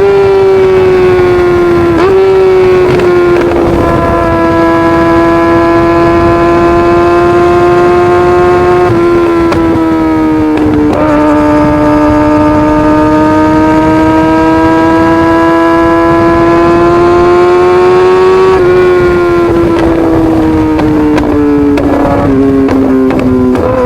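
Kawasaki ZX-6R 636 inline-four through an M4 GP19 full exhaust system, held at high revs with a loud, steady, high-pitched note. The pitch rises and falls slowly and jumps abruptly several times, and near the end it drops in a few steps.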